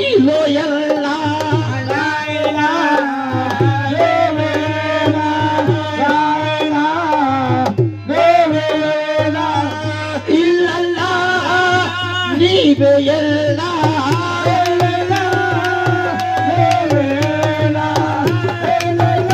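Devotional Sufi kalaam music: tabla keeping a steady rhythm under a held, ornamented melody line.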